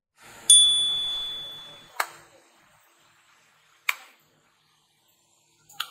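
A bright ding rings out about half a second in and fades over a second or so. Then come three sharp hand claps about two seconds apart, made to trigger an Arduino sound-sensor clap switch.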